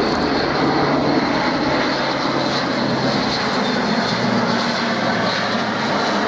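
Airbus A400M Atlas's four turboprop engines running loud and steady as the transport aircraft flies its display. The low engine tones drop slightly in pitch about four seconds in.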